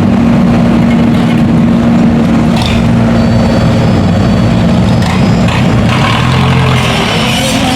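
A large engine running steadily with a low hum. A deeper tone joins for about a second, around six seconds in.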